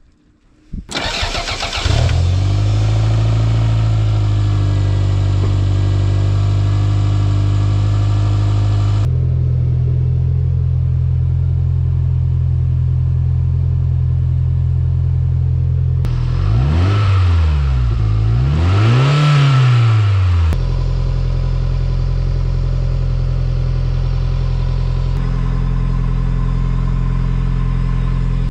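Toyota MR2 SW20's turbocharged four-cylinder engine cranking briefly and catching about a second in, then running at a raised cold-start idle that drops to a lower idle about nine seconds in. It is revved twice, two smooth rises and falls in engine speed, a little past halfway, then settles back to a steady idle while it warms up.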